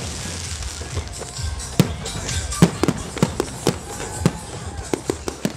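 Display fireworks: aerial shells bursting in a rapid, irregular run of sharp bangs, several a second, over a crackling hiss from the bursting stars.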